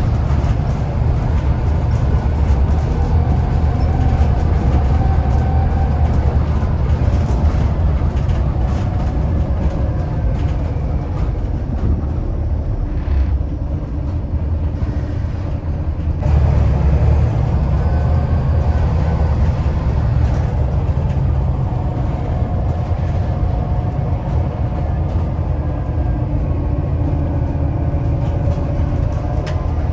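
Volvo B7TL bus's turbocharged diesel engine running under load with a deep rumble and a thin turbo whistle over it. Partway through the engine note eases off, then picks up again as it pulls hard once more.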